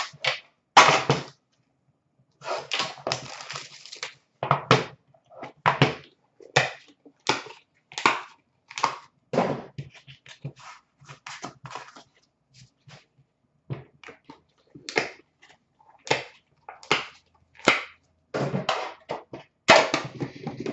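Irregular knocks, clicks and scrapes of metal trading-card tins and cards being handled, opened and set down on a glass counter, with quiet gaps between them.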